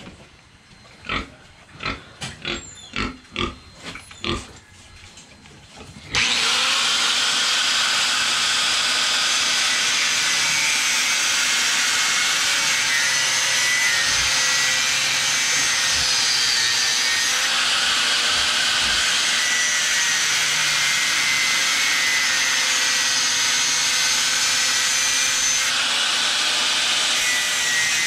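Pigs grunting in short separate calls, then about six seconds in an electric angle grinder starts up and cuts through steel with a steady loud whine that wavers slightly as the disc bites.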